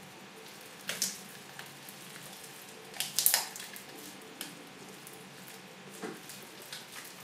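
Clear slime packed with Orbeez water beads being squeezed and kneaded by hand, giving scattered wet squishing clicks and crackles. The loudest cluster comes about three seconds in.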